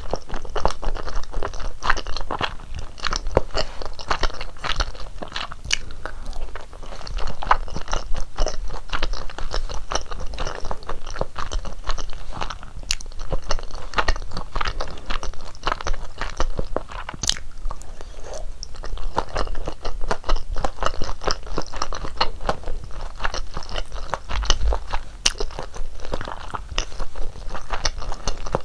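Close-miked chewing of rosé tteokbokki, chewy rice cakes in a thick creamy sauce: a continuous run of wet, sticky mouth clicks and smacks with bites.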